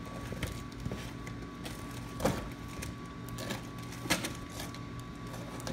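Cardboard boxes and packaging being handled: scattered rustles and knocks, the loudest about two and four seconds in, over a steady mechanical hum with a thin high tone.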